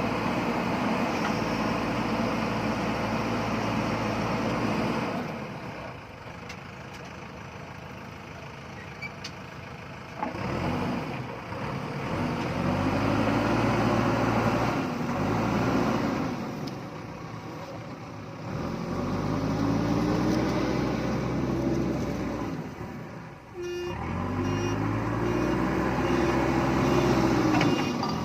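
JCB backhoe loader's diesel engine working, its revs rising and falling several times as the hydraulics are worked. It drops back to a quieter idle for several seconds about five seconds in.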